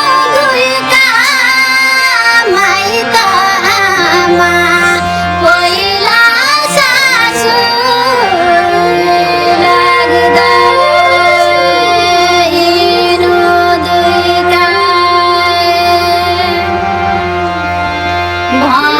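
A woman singing a Nepali folk melody with wavering, ornamented notes over steady held notes of instrumental accompaniment.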